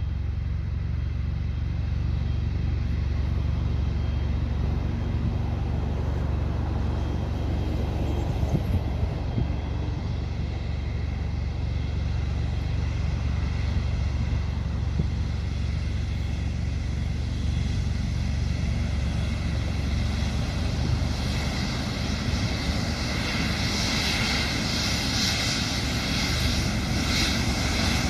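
Boeing 777-300ER's twin GE90-115B turbofan engines running, a steady high whine over a low rumble, growing louder over the last few seconds.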